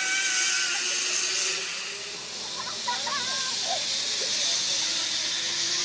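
Zipline trolley running along a steel cable: a steady high hiss that grows louder near the end.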